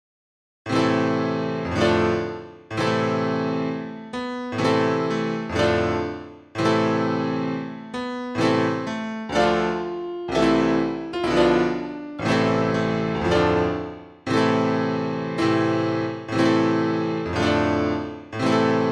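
Solo piano music, slow full chords struck about once a second, each left to ring and fade, starting after a moment of silence.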